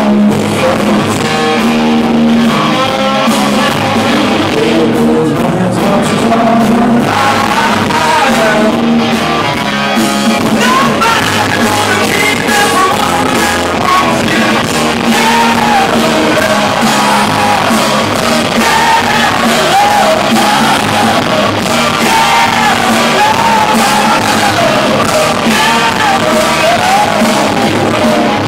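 A rock band playing live and loud: a repeating guitar-and-bass riff over drums, with a male lead singer coming in about eight seconds in.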